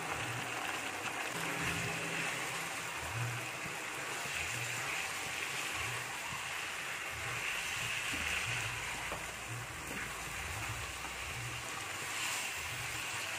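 Chicken simmering in a pan of spiced liquid, a steady hiss, as grated coconut is stirred through it with a spatula.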